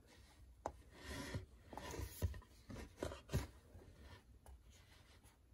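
Several faint, irregular clicks from the push buttons of a HerpStat 4 reptile thermostat as the set temperature is stepped down, with a little soft rubbing from the hand against the unit.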